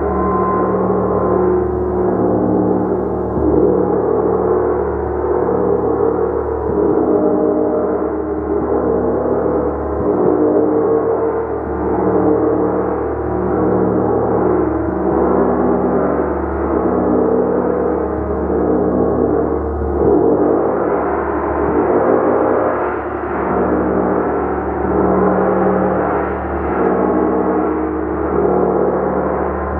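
Gong played continuously: a dense, sustained wash of many overlapping ringing tones that swells and ebbs gently, with no single sharp strike standing out.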